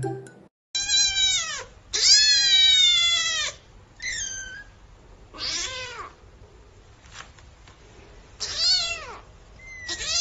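Young kittens mewing: about six high-pitched mews, each falling in pitch, the second one long and drawn out.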